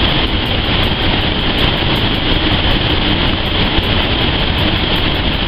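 Steamed pork buns (bao) sizzling as they go into a hot oiled pan, over a steady low rumble of kitchen machinery.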